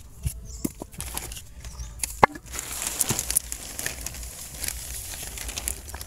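Plastic sheeting being pulled back off a straw-mushroom bed of rice straw. It rustles and crinkles, with scattered clicks and one sharp snap a little past two seconds in. The cover is being opened to air the mycelium.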